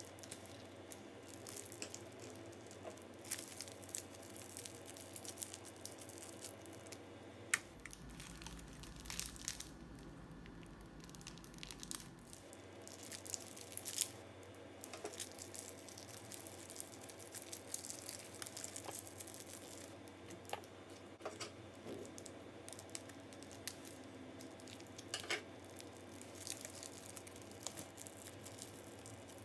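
Crunchy slime and plastic piping bags being squeezed and worked by hand: a steady run of irregular small crackles, crinkles and squishes, with a low hum for a few seconds about a third of the way in.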